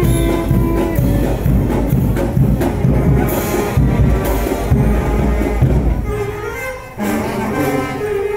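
Marching brass band with drums playing. A held brass chord at the start gives way to a steady drum beat, and the brass comes back in near the end after a brief dip in loudness.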